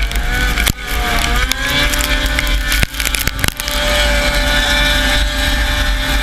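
Snowmobile engine running at racing speed, heard onboard with snow and wind rushing past; its pitch wavers and climbs as the throttle changes, then holds steady. The sound drops out briefly a few times in the first half.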